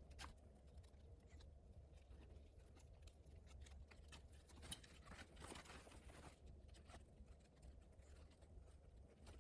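Near silence with a few faint, scattered clicks and rustles of nylon backpack straps and plastic buckles being handled.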